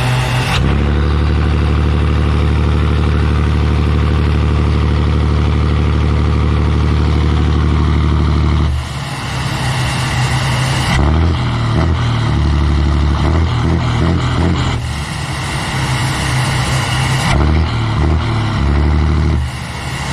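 Scania 113 truck's six-cylinder diesel running through a straight-through exhaust with no muffler, held at steady revs for about eight seconds, then rising and falling in revs.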